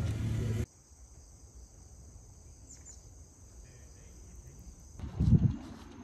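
Quiet, steady high chirring of insects from under a second in, after a louder rumble cuts off. About five seconds in comes a single loud low thump, followed by a low rumbling noise, like wind on the microphone.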